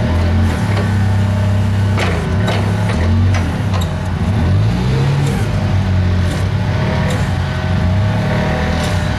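Propane-fuelled forklift engine running steadily as the truck drives and turns slowly, rising briefly in pitch about halfway through as it revs. A few sharp clicks or knocks come through over the engine.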